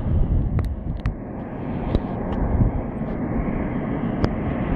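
Jet aircraft noise heard across an airfield: a steady low rumble, with a few short clicks about half a second, a second, two seconds and four seconds in.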